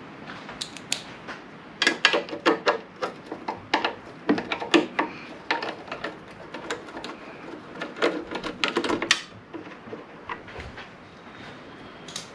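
Sharp metallic clinks and clatter of hand tools being handled and a driver worked on the fasteners of a lawn mower's recoil starter cover, coming thick and fast from about two seconds in until near the nine-second mark.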